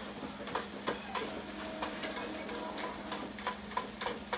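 A meat chopper scraping and tapping irregularly against a skillet as browning breakfast sausage is stirred and broken up, over faint sizzling and a steady low hum.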